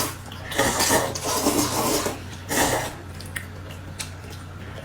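A person noisily eating: loud slurping and gulping in a long stretch from about half a second in, then one short burst just before three seconds.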